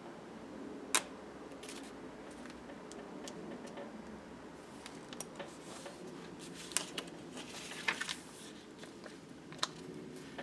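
Small handling sounds of sticker work: metal tweezers clicking and clear sticker paper crinkling as tiny date-dot stickers are peeled off their sheet and pressed onto journal pages. There are a few sharp clicks, one about a second in and several more in the second half.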